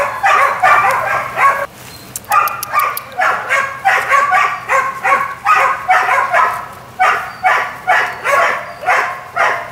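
Weimaraner puppies barking and yipping, short high-pitched calls repeated about two or three times a second, with a brief pause about two seconds in.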